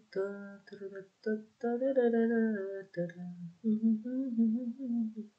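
A person humming a wordless tune: short notes at first, then longer held, wavering notes.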